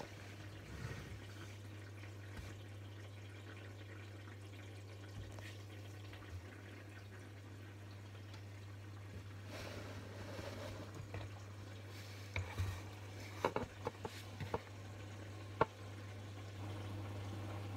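Front-loading washing machine washing a load of hoodies: a steady low hum with water sloshing and running in the turning drum. Late on, a run of sharp clicks and knocks.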